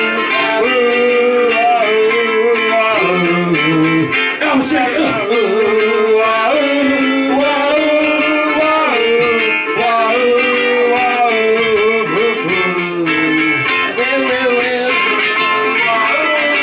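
Ukulele being played with a voice singing a sliding, wordless melody over it.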